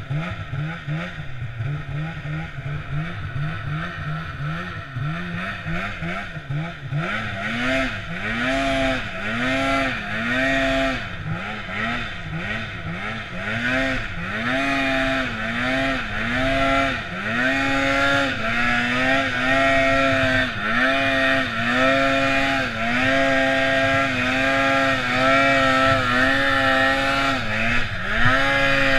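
Polaris Pro-RMK snowmobile's two-stroke engine revving up and down as the throttle is worked. For the first seven seconds the pitch is lower and uneven, then it climbs higher in repeated surges, about one a second, each held briefly at the top.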